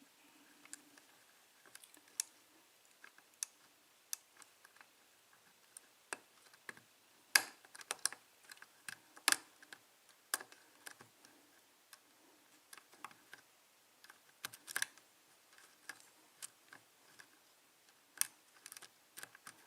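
Lock pick and tension wrench working inside a modified five-pin EVVA euro cylinder while pin 1 is probed, making irregular small metallic clicks and ticks. A few louder clicks are scattered through.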